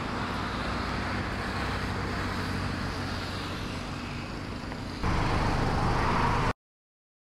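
A car engine running amid road traffic noise. The sound grows louder about five seconds in, then cuts off suddenly about a second and a half later.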